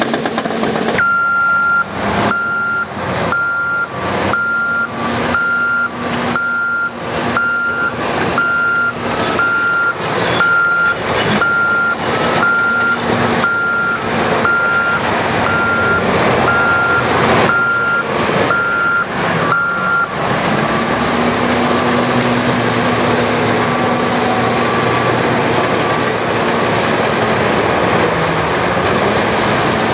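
Backup alarm on a heavy construction machine beeping about once a second while it reverses, over its diesel engine running. The beeping stops about two-thirds of the way through and the engine keeps running, its pitch rising and falling.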